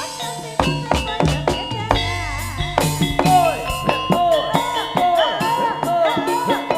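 Live jaranan music: drums struck in a quick, steady rhythm under a wavering melody line that repeats the same swooping phrase, coming in stronger about halfway through.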